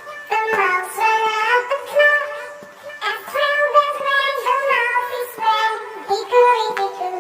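A high, child-like singing voice with music, singing a nursery-rhyme tune.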